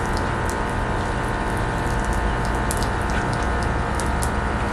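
Air conditioner running, a steady hum and hiss, with a few light ticks scattered through it.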